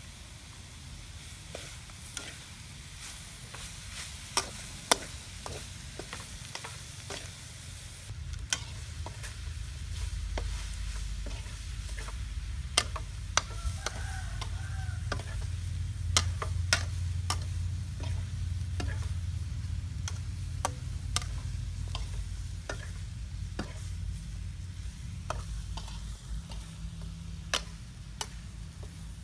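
Metal spatula clacking and scraping against a metal pan as pieces of eel are stirred and fry, with a light sizzle. Sharp clinks come at irregular moments over a low steady rumble that grows louder about a third of the way in.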